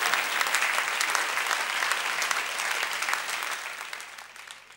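Audience applause, dense clapping that fades away over the last couple of seconds.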